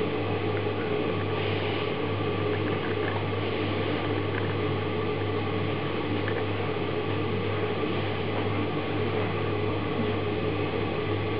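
Steady machine hum, like a fan or appliance motor running, with a low drone and a faint hiss that stays level throughout.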